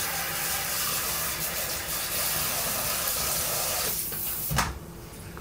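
Steady rushing hiss of running water, like a tap left running, that cuts off about four seconds in; a single short thump follows.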